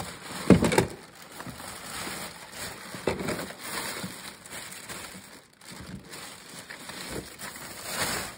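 Thin plastic bag rustling and crinkling as it is pulled off a boxed RC motorcycle, in irregular crackles with louder handfuls about half a second in, around three seconds in and near the end.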